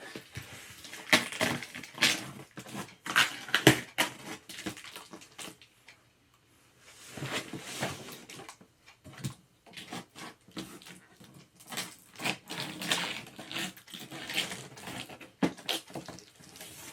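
Gaming-chair parts and packaging being handled: a string of sharp knocks and clatters mixed with rustling, with a brief pause about six seconds in.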